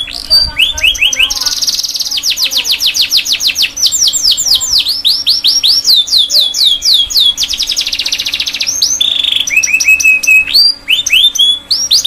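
Domestic canary singing a long, continuous song made of runs of quickly repeated notes: very fast rolls alternate with series of falling whistled sweeps, each run changing to a new note, with a brief break near the end.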